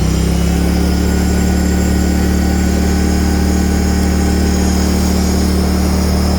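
John Deere F687 mower's 20-horsepower Kohler Command engine running steadily at high throttle, just brought back up from idle.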